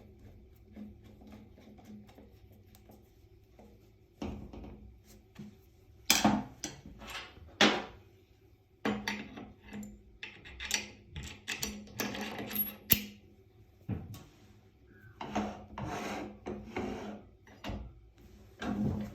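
Steel parts of a 2x72 belt grinder's cam lock and tool arm being handled by hand: irregular knocks and scraping rubs of metal on metal. A part drops into place under its own weight, and the cam is then swung to lock it tight.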